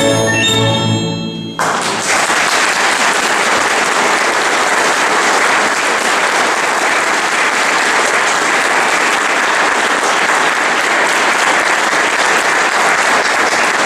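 The last held chord of a small salon orchestra of strings and piano dies away, then an audience applauds steadily from about a second and a half in.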